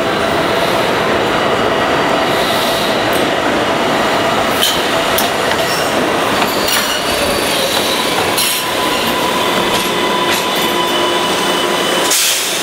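Light rail train of Kinkisharyo Type-7 and AnsaldoBreda Type-8 cars pulling into a station platform: steel wheels squealing on the rails over a steady rumble, with several sharp clicks and clanks as the cars pass and slow.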